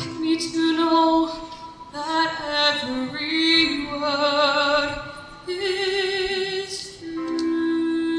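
Solo female vocalist singing a ballad through a stage microphone, her held notes wavering with vibrato. About seven seconds in, the music settles on a long steady held tone.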